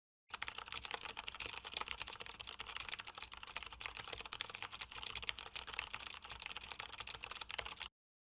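Fast typing on a Tecware Phantom RGB mechanical keyboard with Outemu Brown tactile switches: a dense, continuous run of keystroke clicks that starts just after the beginning and cuts off shortly before the end.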